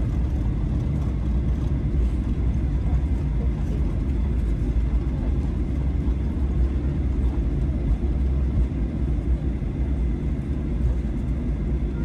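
Steady low rumble of a moving car: engine and road noise, even in level throughout.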